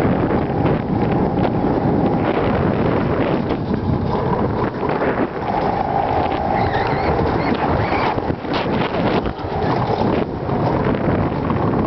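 Alpine coaster sled running fast down its steel rails: a loud, steady rumble of the wheels mixed with wind buffeting the microphone, with a whine that comes and goes.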